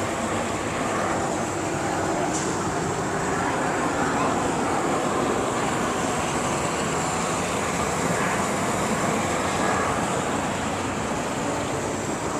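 Jet airliner engines running, a steady rushing noise with a thin high whine held throughout.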